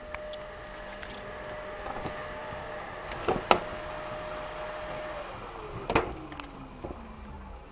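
A steady high whine, like a small electric motor, that slides down in pitch about five seconds in, with a few sharp knocks, the loudest about three and a half and six seconds in.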